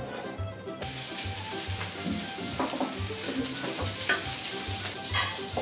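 Diced guanciale sizzling in a hot nonstick frying pan, the hiss starting suddenly about a second in as the pieces are scraped in from the cutting board and then going on steadily.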